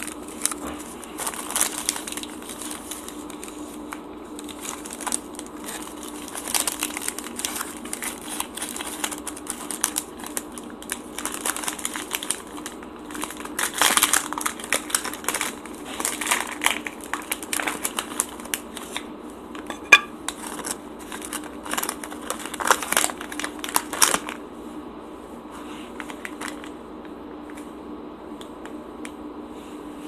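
Paper sleeve and foil wrapper of a Hershey's Cookies 'n' Creme bar being unwrapped by hand: irregular crinkling and rustling that stops about three-quarters of the way through.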